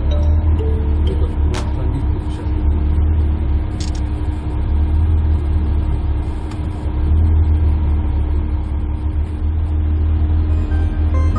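Car engine running steadily with a deep, loud rumble, with a couple of short sharp clicks over it.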